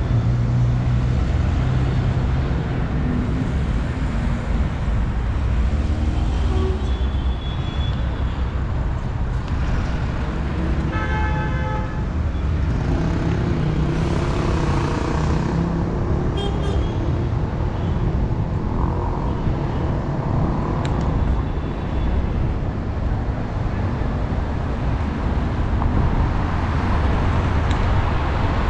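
Busy city street traffic: cars and buses running past with a steady low rumble. About eleven seconds in, a vehicle horn sounds a few short beeps.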